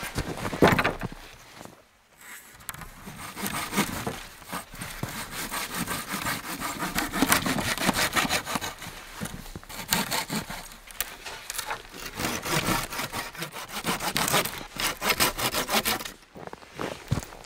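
Folding hand saw cutting through thin dry wooden poles laid across a log, a long run of back-and-forth strokes. A wooden knock comes under a second in as the poles are set down, and the sawing pauses briefly near the end before starting again.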